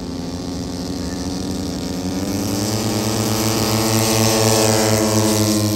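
The twin engines of a C-47-type aircraft running up to full power on the takeoff roll, rising in pitch and getting louder as it accelerates past, loudest a little past the middle.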